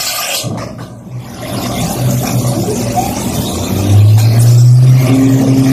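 CNC milling machine running, its spindle hum stepping up in pitch and loudness about two and again about four seconds in, with a higher tone joining near the end, over a steady hiss. The machine is drilling screw holes in harmonica combs.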